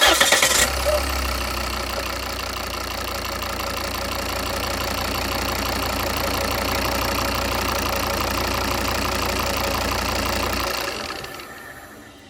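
Volvo 2.4D five-cylinder diesel engine catching as it starts, idling steadily for about ten seconds, then switched off about eleven seconds in and dying away. The owner is checking it for an extraneous noise.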